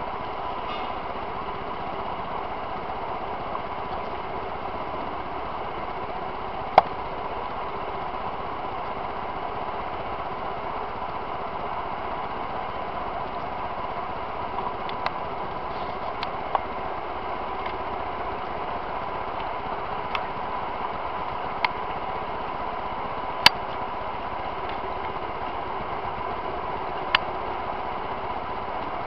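A steady machine-like hum with a constant mid-pitched tone, broken by a few sharp clicks scattered through.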